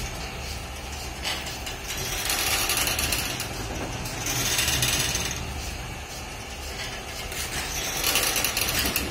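Bullock-driven stone oil press (kal chekku) crushing groundnuts: the pestle turning round in the stone mortar with a steady grinding and creaking that swells and fades every few seconds.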